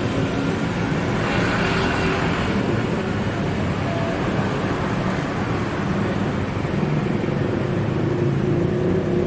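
Street traffic ambience: a steady rumble of passing vehicles, with one vehicle swelling louder and fading about a second in.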